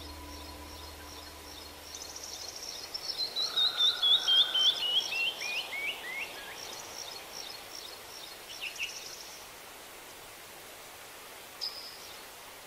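Small songbird singing: a quick run of notes that falls steadily in pitch over about four seconds, with scattered high chirps around it and a short chirp near the end, over a faint steady hiss.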